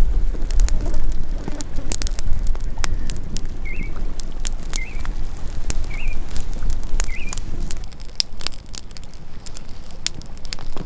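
Wood fire crackling and popping over a steady low rumble. A bird gives four short chirps about a second apart midway through.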